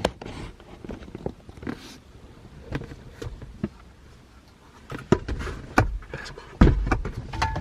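Scattered knocks, clicks and rustling of someone moving about inside a car, with a heavy low thump about six and a half seconds in.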